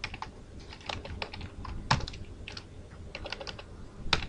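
Computer keyboard typing: irregular keystrokes several times a second, with two louder clacks, one about two seconds in and one near the end.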